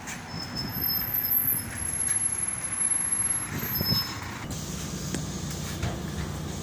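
Solaris Urbino 12 III city bus standing at a stop with its engine running while a passenger boards. About four and a half seconds in, the sound changes to a steady engine hum with hiss, as heard from inside the bus.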